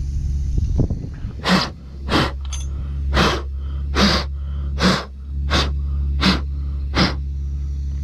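Electric fuel pump of a Mercedes 190E's KE-Jetronic injection humming steadily, run by a jumper wire with the engine off. Over it come about nine short hissing spurts, roughly one every 0.7 s, as the airflow sensor plate is pressed and fuel squirts from the fuel distributor's open injector ports, showing that the distributor delivers fuel.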